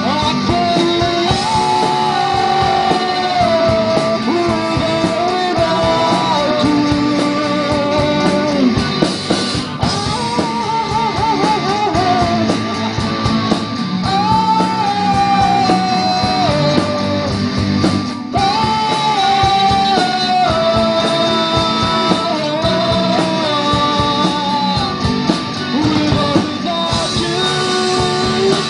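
A live rock band playing, with singing over electric guitars and drums.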